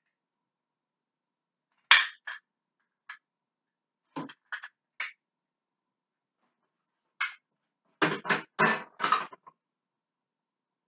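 Dishes and kitchenware clattering as things are moved around on a kitchen counter: scattered sharp clinks and knocks, the loudest about two seconds in, and a quick run of knocks near the end.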